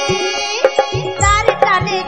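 Instrumental break of a Bengali Baul folk song: hand-drum strokes with low tones that bend in pitch, under a high melody line.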